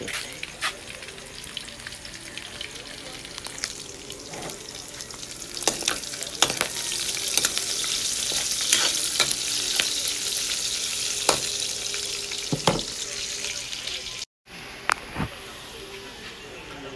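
Chicken pieces sizzling in hot oil in a wok, with sharp clicks and scrapes of a metal spatula against the pan as they are stirred. The sizzle grows louder about six seconds in, breaks off briefly near the end and comes back quieter.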